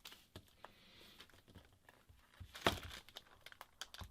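Faint handling noises from small plastic phone-repair tools: scattered light clicks and crinkles, with one sharper click about two and a half seconds in and a few quick ticks near the end.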